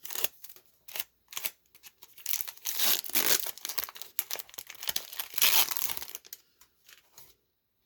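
Foil wrapper of a Pokémon Brilliant Stars booster pack crinkling and tearing as it is opened, in a run of sharp crackles that thins out near the end.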